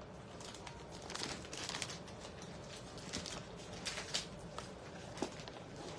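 Faint crinkling of a handbag's clear plastic wrapping, with scattered small clicks and knocks as the bag is handled.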